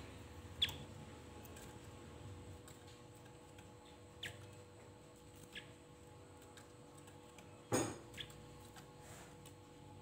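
Caged Javan grey-throated white-eye (opior Jawa) giving a few short, sharp call notes that drop steeply in pitch, spaced a few seconds apart. A single knock comes about three-quarters of the way through.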